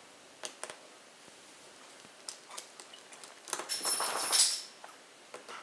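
Small hand-tool and screw handling on a wooden table: a few light clicks, then a brief louder clatter with a thin metallic ring about three and a half seconds in, as the removed screws and the mini screwdriver are set aside.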